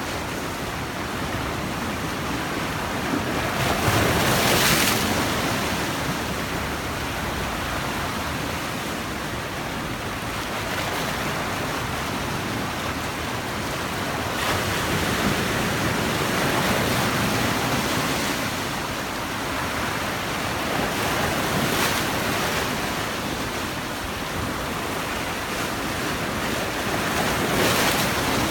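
Sea waves breaking on the shore and washing back, with surges every several seconds, the strongest about four seconds in and near the end, and some wind buffeting the microphone.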